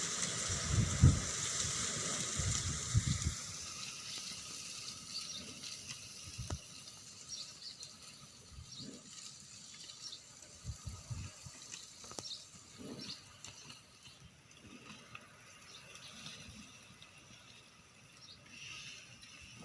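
Water running or pouring, with a few low thumps in the first three seconds, then fading away to faint scattered ticks.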